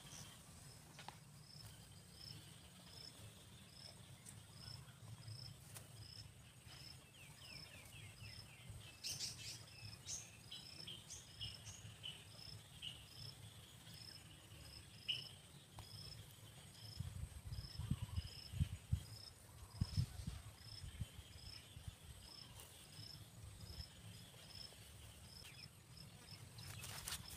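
Outdoor insect and bird sounds: an insect chirps high and regularly, about every three-quarters of a second, with scattered bird calls. A few louder low rumbles come about two-thirds of the way through.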